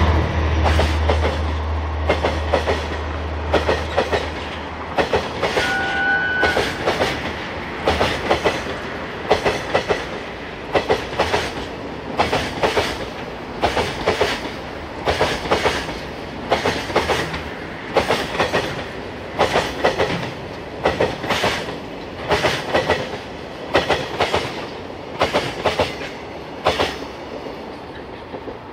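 Container wagons of a freight train rolling past behind a DF200 diesel-electric locomotive: clusters of clickety-clack as the wheelsets cross rail joints, repeating about every second and a half, while the locomotive's engine drone fades away over the first few seconds. A short high squeal about six seconds in; the sound thins out near the end as the last wagon passes.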